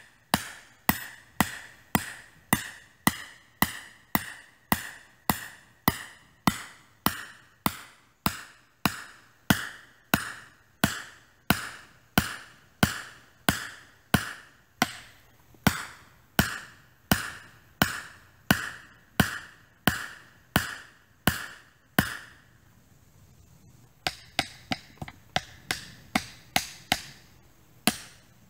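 Steel hand tool striking rock in a footing hole, hammering and chipping to break up a rock layer. Even strikes at about two a second, each with a short metallic ring, stop about 22 seconds in; after a pause, quicker, lighter strikes resume near the end.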